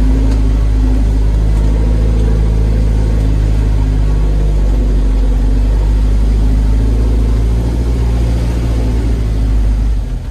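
Mahindra off-road jeep's engine running steadily as it drives along, a low drone that eases a little near the end.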